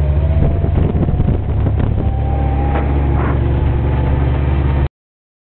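Gator utility vehicle's engine running steadily while driving over bumpy grass, with a faint whine and rattling knocks from the body in the first second or so. The sound cuts off suddenly near the end.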